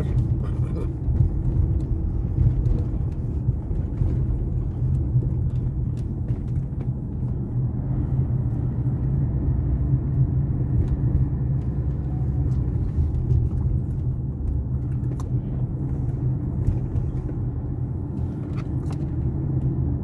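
Car being driven along a road: a steady low rumble of engine and tyres, heard from inside the car.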